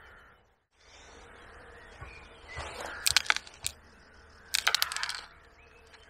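Sharp clicks and rattles from a carbon fishing pole being handled, in two short clusters about a second and a half apart.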